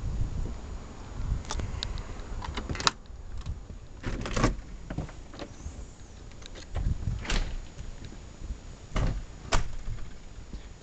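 An interior door being opened by its brass knob, with sharp latch clicks and knocks scattered through, over low thumps of walking and handling.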